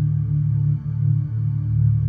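Slow ambient background music: low sustained drone-like tones.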